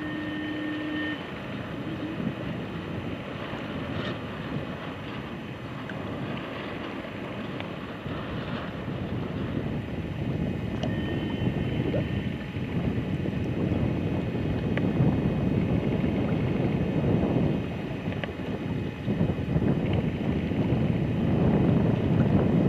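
Wind buffeting the microphone in gusts, growing stronger in the second half, with a brief steady tone lasting about a second right at the beginning.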